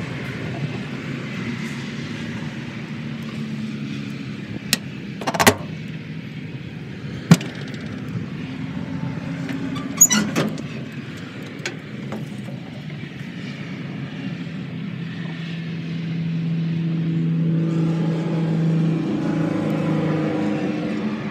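A steady motor rumble that grows louder near the end, with several sharp metal clanks, the loudest about seven and ten seconds in, as the steel smoker's door latch and door are worked.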